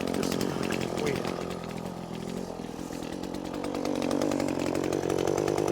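Small handheld two-stroke power tool running at high revs, easing off about two seconds in and picking back up toward the end.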